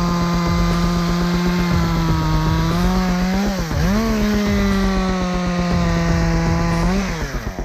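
Chainsaw held at high revs, dipping sharply and revving back up about halfway through, then falling away as the throttle is let off near the end.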